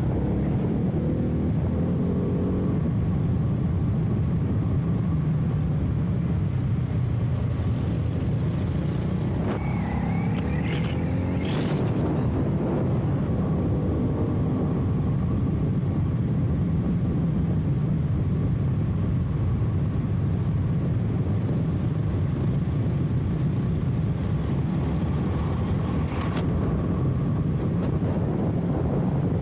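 Ducati Hypermotard 698 Mono's single-cylinder engine running under way at track speed, rising in pitch several times as it accelerates. Heavy wind rush buffets the helmet-mounted microphone throughout.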